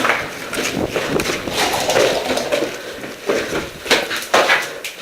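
Irregular knocks and clatter: a series of sharp hits at uneven intervals, the loudest about four seconds in.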